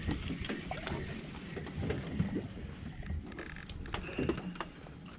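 Boat rocking on open sea, with water slapping the hull and wind on the microphone. An angler's spinning reel and rod knock and click now and then as a small fish is wound in and lifted from the water.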